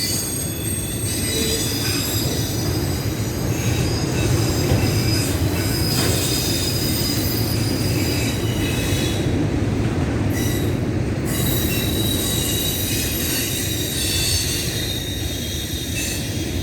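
Train rolling past, with a steady low rumble and high-pitched squealing from its wheels on the rails, several squeal tones rising and fading over the stretch.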